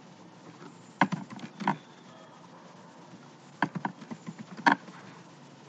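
Computer keyboard keystrokes and mouse clicks: a few sharp clicks in two short clusters, about a second in and again past the middle.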